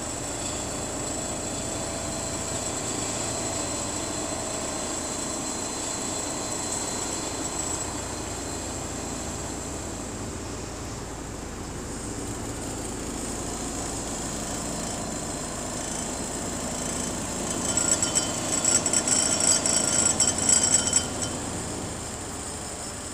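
Steady drone of a Svedala vibratory roller compacting ground outside, heard through a window. About three-quarters of the way in, a few seconds of rapid clinking rattle from drinking glasses on a cupboard shelf, shaken by the roller's vibration.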